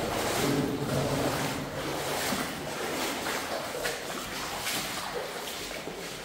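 Boots wading through shallow standing water in a flooded mine tunnel: a steady rhythm of splashing, sloshing steps, roughly one every three-quarters of a second.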